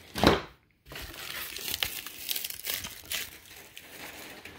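A short thud just after the start, then plastic packaging bags and packing material crinkling and rustling continuously as they are handled.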